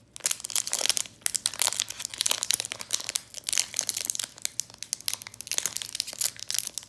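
Foil wrapper of a Pokémon booster pack crinkling in the hands as it is worked open: a dense, continuous run of sharp crackles.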